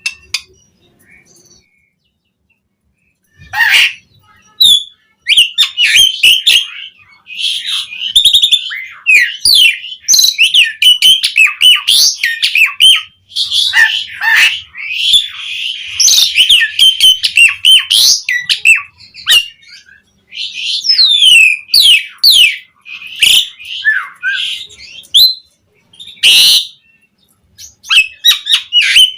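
Asian pied starling (jalak suren) singing a long, varied song of fast chirps, whistles, rapid sweeping trills and harsh notes. It starts about three and a half seconds in and pauses briefly near the end.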